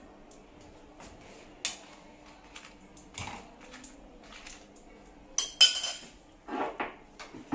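Steel kitchen utensils clinking and knocking against each other in a few scattered strokes, the loudest a metallic clatter about five and a half seconds in.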